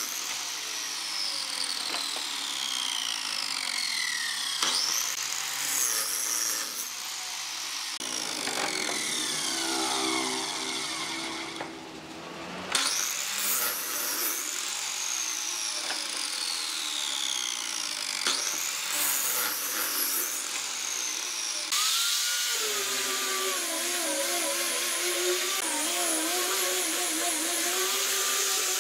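Miter saw making a series of cuts through wooden boards, its motor whine rising as the blade spins up and falling as it coasts down after each cut. About three-quarters of the way in, a hand-held power tool with a sanding disc starts sanding the wood, its pitch wavering as it is pressed on.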